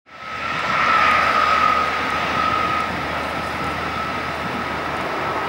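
Airbus A321-211 jet engines at low taxi power: a steady rushing jet noise with a high, thin whine running through it. The sound comes up quickly at the start and is loudest about a second in.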